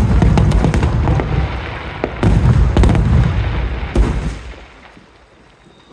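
Aerial fireworks bursting: a rapid run of sharp cracks over deep booms, with a big burst about two seconds in and a last boom near four seconds, after which the noise dies away to a lull.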